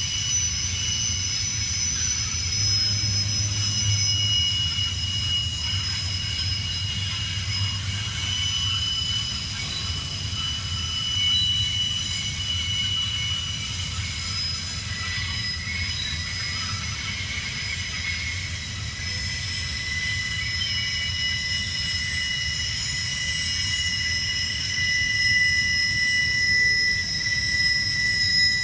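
Freight car wheels squealing as a train loaded with rail rounds a curve. Several high, steady squeals come and go and overlap over the low rumble of the rolling cars.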